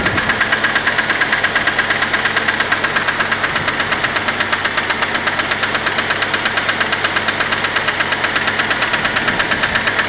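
Mitsubishi 4G63 DOHC inline-four idling with a loud, rapid, evenly spaced clacking knock from the cylinder head, hammering hard. The owner's first guess is the hydraulic lash adjusters (lifters).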